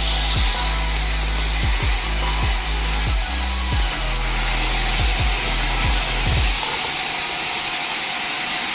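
Band saw cutting timber, a steady loud sawing noise, over background music with a repeating low beat.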